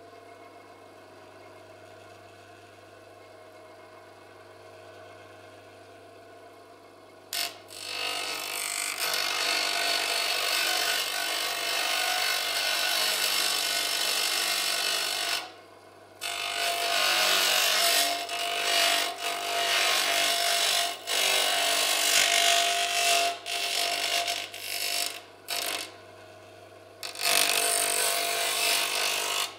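VEB Galvanotechnik double-ended bench grinder: the motor hums as the wheels spin free, then about seven seconds in a workpiece is pressed to the wheel and it grinds loudly. The grinding comes in long passes, broken by a pause in the middle, several short breaks and another pause near the end.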